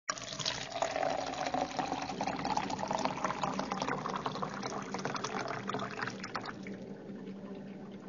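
Water poured into a drinking glass: a continuous splashing pour whose pitch rises slightly as the glass fills, thinning out near the end.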